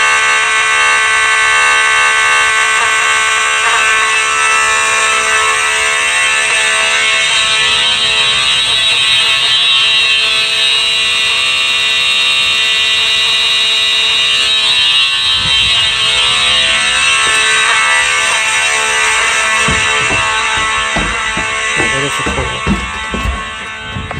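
Simplex 4903 fire alarm horns, a mechanical 4903-9217 and an electronic 4903-9254, sounding together in one continuous loud, many-toned blare. Near the end the sound drops off and a few knocks are heard.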